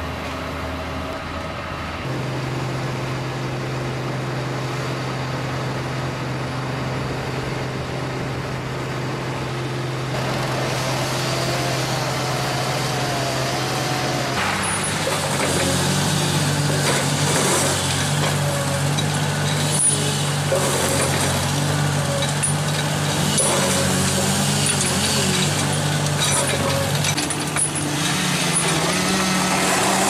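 Hydraulic tracked excavators working: a diesel engine runs steadily under load as a grapple handles a felled tree. About halfway through the sound changes to another excavator working among logs and brush, with scattered sharp cracks and crunches of wood.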